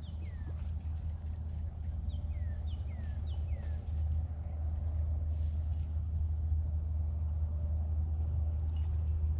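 Steady low rumble, with a songbird calling in short runs of quick downward-sliding whistled notes, twice in the first four seconds and once more near the end.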